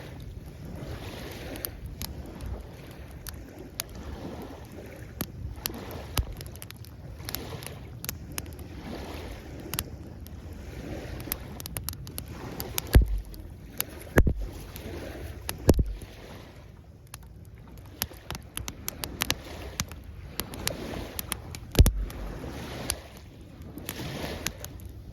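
Campfire wood crackling in sharp, irregular pops over waves washing onto the shore, which swell and fall away. A few heavy thumps land about halfway through and again near the end.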